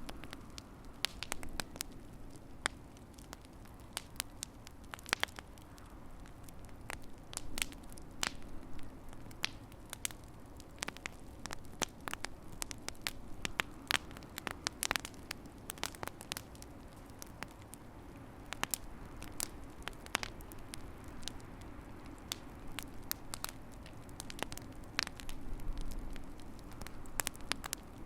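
Wood fire crackling in a fireplace: irregular sharp snaps and pops, some in quick clusters, over a steady low rumble of burning.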